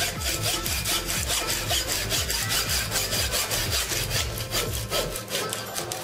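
Hacksaw cutting through the secondary coil of a microwave oven transformer, in quick, even back-and-forth strokes.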